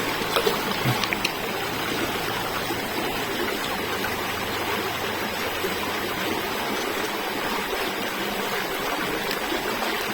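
Steady rushing of running water, even throughout, with a few light knocks in the first second or so.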